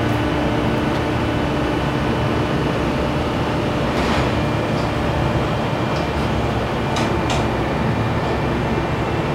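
Car ferry's engine machinery droning steadily and noisily, heard on the open deck at the stern, with a few faint clicks over it around the middle and later on.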